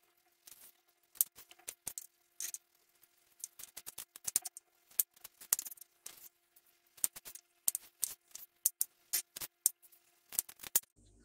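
Large kitchen knife chopping raw green banana (plantain) on a wooden cutting board: sharp, irregular knocks of the blade through the banana onto the board, several a second, with short pauses between runs of cuts.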